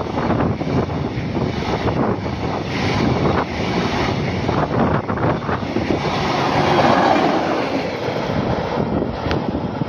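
Freight train of open-top gondola wagons passing close at speed: a continuous loud rumble with the wheels clattering over the rails.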